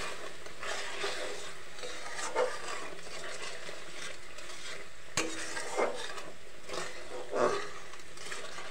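Flat spatula stirring and scraping thick masala gravy in a kadhai, over the steady sizzle of the paste frying, with a single sharp knock about five seconds in.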